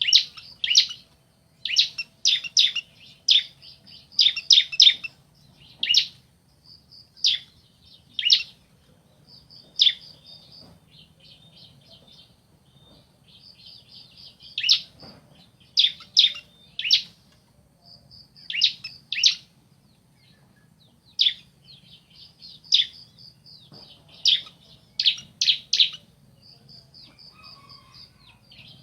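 Bar-winged prinias (ciblek), male and female calling back and forth: loud, sharp, high down-slurred notes, some single and some in quick clusters of two to four, alternating with trills of rapid high ticking notes.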